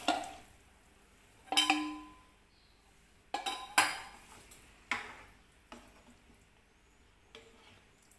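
A ladle stirring chickpea curry in a nonstick pan, with about seven separate sharp knocks and clinks of utensils against the pan; one knock about one and a half seconds in rings briefly.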